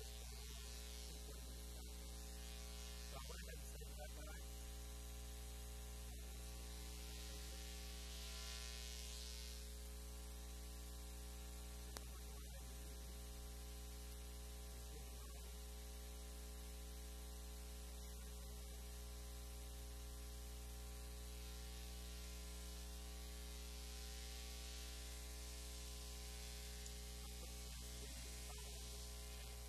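Steady electrical mains hum with a low hiss, a constant buzz with many overtones and no speech. A single faint click about twelve seconds in.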